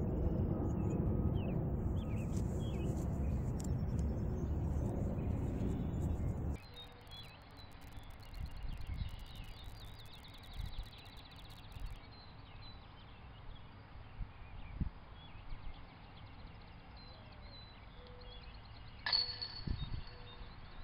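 Wind rumbling on the microphone, which stops suddenly about six seconds in. After that it is quieter outdoors, with small birds chirping faintly, and near the end a single sharp knock with a brief ringing.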